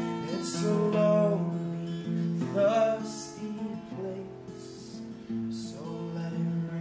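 Acoustic guitar strummed and picked, with a man singing over it. The playing drops a little in level about four seconds in, then comes back up.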